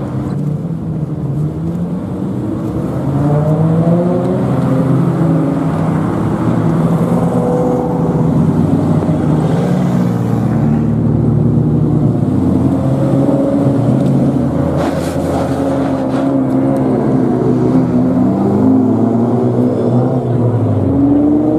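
Several lowered custom cars with loud exhausts revving and driving off one after another, their engine notes repeatedly rising and falling.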